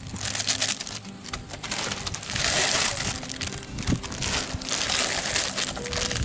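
Plastic instant-noodle packets crinkling and rustling as they are handled and emptied into a pot of boiling water, loudest in the middle.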